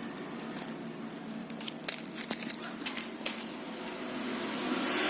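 Faint rustling and a handful of sharp little clicks, mostly between about one and a half and three and a half seconds in, over a quiet room; a steady background noise swells near the end.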